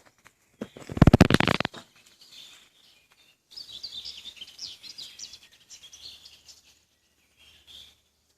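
A loud, brief flurry of rapid clattering about a second in, followed by small birds chirping repeatedly in short high calls.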